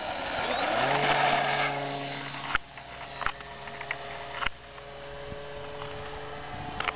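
Skyartec Pitts S-2A RC biplane's electric motor and propeller throttling up for takeoff with a rushing noise, then settling into a steady whine that slowly fades as the model climbs away. Two sharp clicks partway through.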